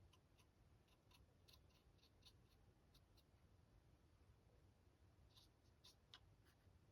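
Near silence: room tone with a few faint, light ticks, scattered irregularly and grouped about two seconds in and again near the end.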